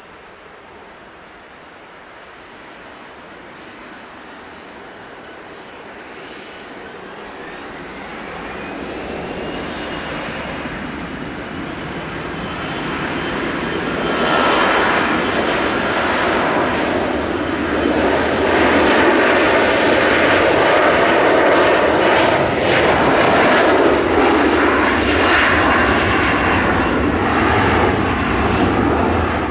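Boeing 737-500's twin CFM56-3 turbofans spooling up for takeoff. A whine rises in pitch about seven seconds in, and the sound grows steadily louder. About halfway through it jumps to the full, loud noise of takeoff thrust as the jet starts its takeoff roll.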